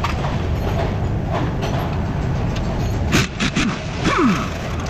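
Steel combination wrenches clinking several times about three seconds in as they are set on the front strut's bolts, over a steady low rumble.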